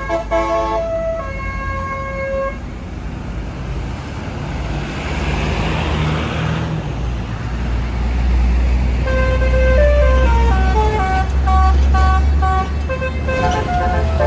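Bus basuri "telolet" multi-tone horn playing a tune of short stepped notes at the start, pausing, then starting again about two-thirds of the way through. Underneath, the bus's engine runs with a heavy low rumble that grows louder in the second half, with a rush of noise midway.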